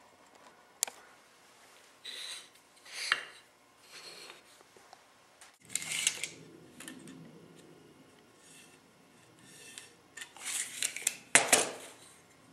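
Small hand-handling sounds: intermittent short scrapes and rubs with a few sharp clicks, the busiest and loudest stretch near the end.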